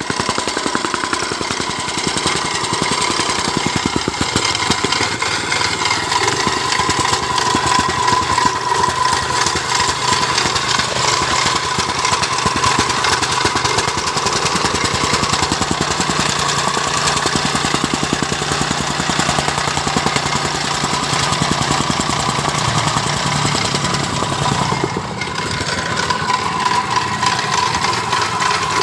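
Engine-driven soil compactor running and pounding the ground in a rapid steady rhythm, dipping briefly near the end.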